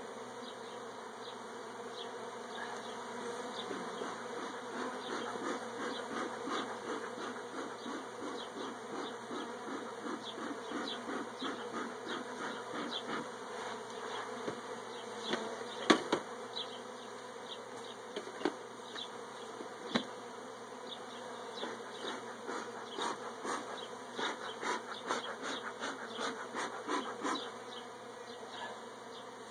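Many honeybees buzzing in the air around a freshly exposed honeycomb, with a steady hum and a dense run of short individual buzzes as bees pass close. A few sharp taps stand out, the loudest about halfway through.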